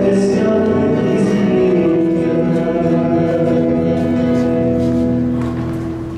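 Music: a song with long, held sung notes over instrumental backing, easing down in level near the end.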